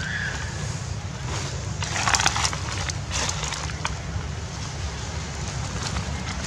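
Dry fallen leaves crackling and crunching underfoot in a few short bursts, strongest about two seconds in and again around three seconds, over a steady low rumble of wind on the microphone.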